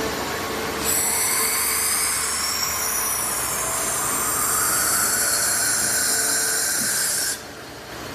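Horizontal machining center cutting a connecting rod: a shrill, screeching cut with several high, shifting tones starts about a second in and stops abruptly near the end, over a steady machine hum.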